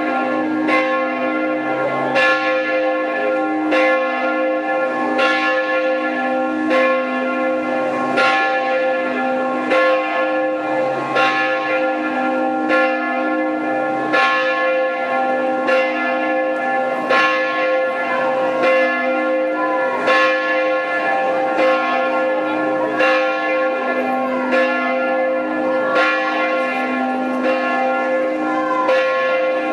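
Several church bells ringing together in a continuous peal. Their strokes overlap at an uneven pace of roughly one to two a second over a sustained hum of their tones.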